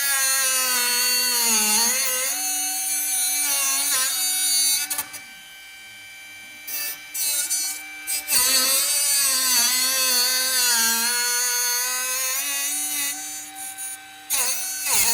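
Handheld electric power tool working steel, its motor pitch sagging and recovering as it is pressed into the work. It eases off twice, about a third of the way in and again near the end.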